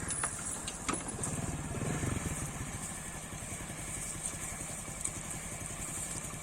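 An engine running steadily, with a fast, even low pulsing, and a steady high hiss over it.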